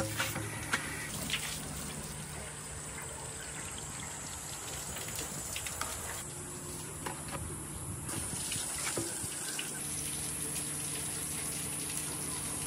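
A large number of marbles rolling down a handmade marble run: a continuous rushing rattle with scattered sharper clicks.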